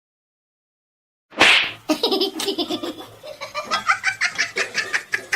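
A person laughing hard, starting with a sudden loud burst of breath about a second in and going on in short, gasping bursts.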